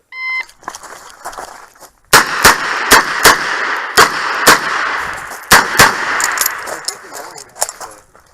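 Shot timer beeps once, and about two seconds later a Smith & Wesson 929 9 mm revolver fires a string of about eight shots, mostly in quick pairs, with a few fainter shots near the end.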